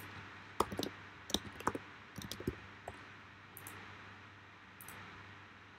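Computer mouse clicks and keyboard keystrokes: a scatter of short, sharp clicks in the first three seconds, including a quick run of several together, then a few fainter ticks over a steady low hiss.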